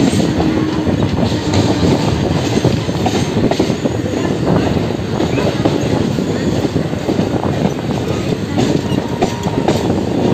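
Suburban electric train running, heard from its open door: a steady rumble with the wheels clattering over the rails.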